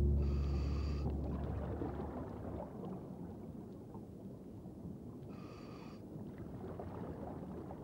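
A scuba diver breathing through a demand regulator: two short hissing inhalations, about five seconds apart, with a low crackling hiss between them.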